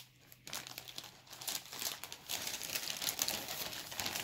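Plastic packaging crinkling and rustling as squishy toys in their clear plastic bags are handled. It starts about half a second in and grows louder.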